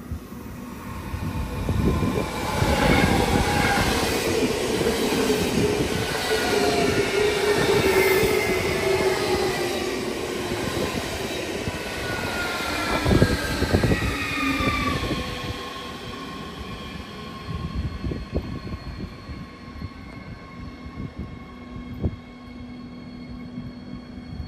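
Train slowing down, with several whining tones that fall steadily in pitch as it loses speed and a couple of sharp knocks about halfway through; the noise then drops away, leaving a quieter steady whine.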